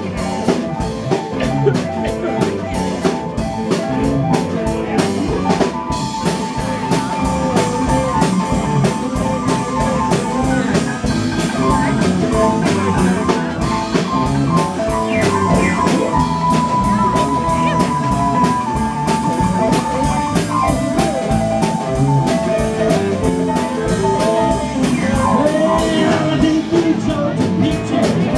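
Live band playing a blues-rock song: acoustic and electric guitars over a steady drum beat, with long held lead notes through the middle.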